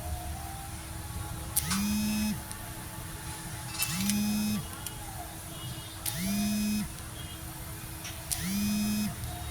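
A small electric motor whirs up quickly, runs for about half a second and stops. It does this four times, about every two seconds.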